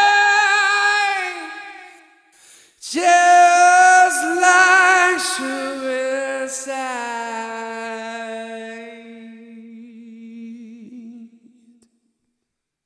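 A man singing a cappella, with no instruments, in a high, loud rock voice. A held note fades about two seconds in; after a brief gap, a loud phrase settles into one long note with vibrato that slowly dies away near the end.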